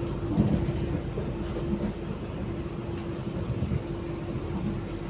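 Cabin running noise of an Auckland AM-class electric multiple unit in motion: a low rumble of wheels on rail, with a steady hum and a few light clicks.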